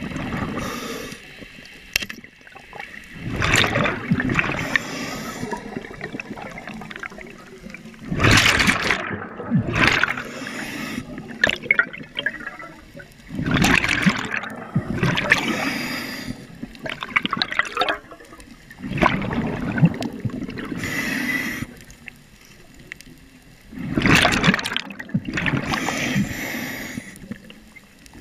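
Scuba diver breathing through a regulator underwater: a rush of exhaled bubbles about every five seconds, with a softer hiss of inhalation between.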